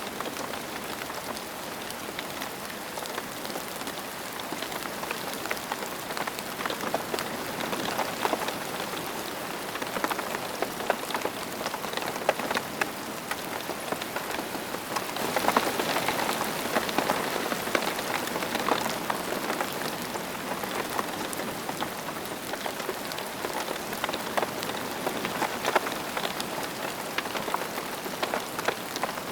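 Steady rain falling on a surface, a dense patter of individual drops, growing somewhat heavier for a few seconds in the middle.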